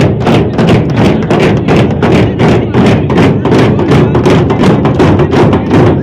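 A group of large rope-tensioned barrel drums (dhol) beaten hard with sticks, a loud, fast, steady beat of about five strokes a second.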